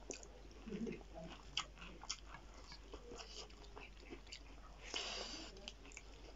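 Close-up mouth sounds of people eating a rice meal by hand: chewing, lip smacks and soft clicks, with a louder noisy smack about five seconds in.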